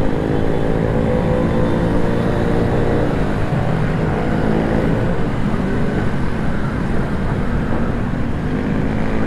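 Motorcycle engine running while riding, its pitch rising and falling gently, over steady wind rumble on the microphone.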